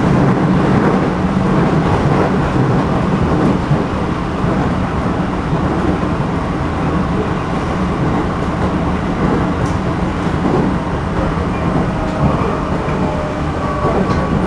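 Running noise inside a JR Central 211 series motor car, MoHa 210-5012: steady wheel and track rumble with a strong low hum from its MT61 traction motors. The uploader counts this car as one with abnormal noise, a tremendous wavering drone of unknown cause.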